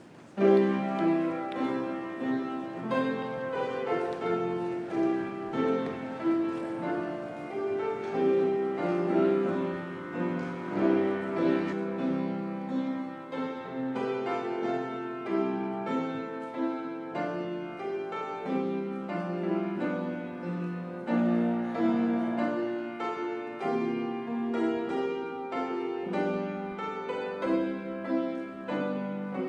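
Grand piano playing a hymn tune in full chords, starting about half a second in.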